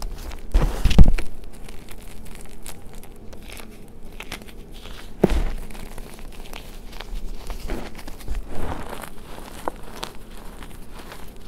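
Bare hands squeezing and crumbling reformed gym chalk in a tray, soft powdery chunks breaking into dust with an irregular gritty crunching. The loudest crunch comes about a second in, with another about five seconds in.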